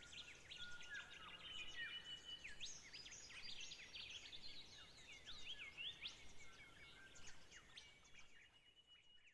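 Several birds chirping and whistling in the background: many overlapping short calls and rising and falling whistles. The sound fades out near the end.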